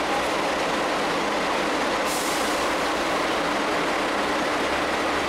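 Steady road traffic noise, buses and other vehicles running, with a brief hiss about two seconds in.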